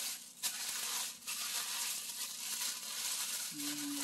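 Tissue paper rustling and crinkling as an item wrapped in it is unwrapped by hand, with a brief low hum near the end.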